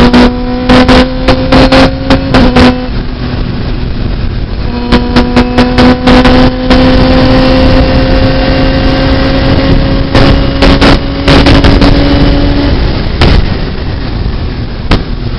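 Onboard sound of a Radical SR3 RS race car's motorcycle-derived engine pulling hard, its pitch climbing slowly as it accelerates. The engine note drops away about three seconds in and again near the end, as the car comes off the throttle. The run is broken by repeated loud crackling bursts where the recording overloads.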